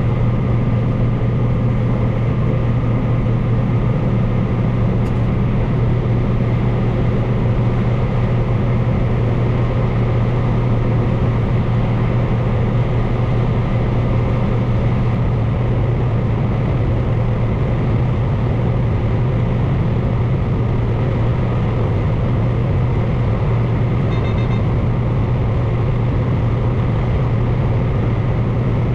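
Combine harvester running steadily while picking corn: a constant low engine and machinery drone at an even level.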